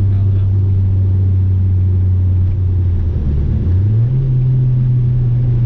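Car engine running, heard from inside the cabin as a steady low hum that steps up slightly in pitch about three and a half seconds in. The engine is a high-mileage four-cylinder logging misfire codes P0300 to P0304.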